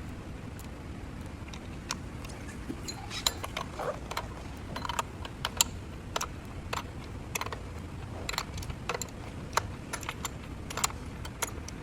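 Irregular light clicks and clinks of small metal parts and tools being handled, a few each second, over a steady low background hum.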